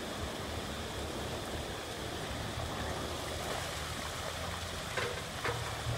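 Excavator engine running under a steady rushing noise, with a few short knocks near the end.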